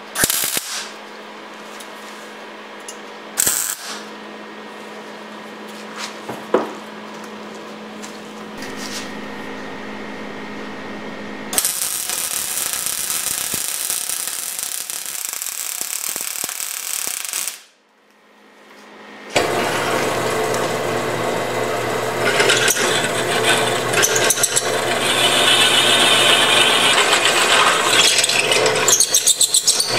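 A wire-feed welder crackling and hissing steadily for several seconds while laying a weld on steel square tubing, after a stretch of low hum broken by a few short sharp sounds. After a brief cut, a drill press runs with its bit cutting into a steel block, growing louder and harsher a few seconds in.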